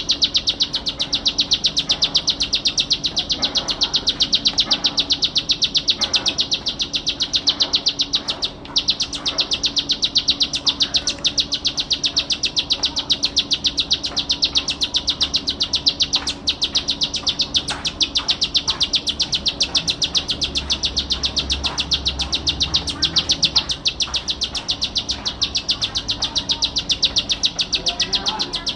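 Ciblek sawah, a small prinia, singing a continuous, very fast run of high repeated notes, the rapid 'ngebren' chatter used in masteran songs. It breaks off only for a moment, about eight and a half seconds in.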